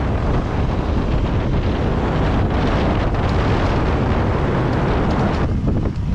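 Loud wind buffeting the microphone of a camera on an electric dirt bike riding along a dirt trail, mixed with the rumble of tyres on loose dirt. The hiss thins briefly near the end.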